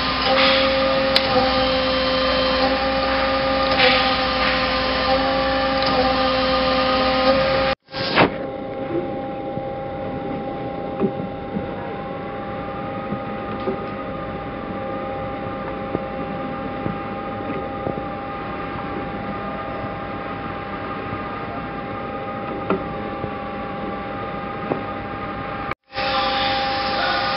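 Mazak QT20HP CNC turret lathe powered up, running with a steady machine hum and several constant whining tones. The sound drops abruptly to a quieter steady hum with a few small clicks about 8 seconds in, and the louder hum returns near the end.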